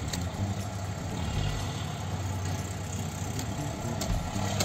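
Car engine idling, a steady low hum heard inside the cabin, with a few faint clicks over it.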